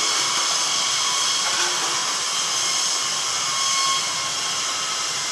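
Kaiyuan 1200-amp submerged arc welder running a weld: a steady hiss with a faint steady whine under it.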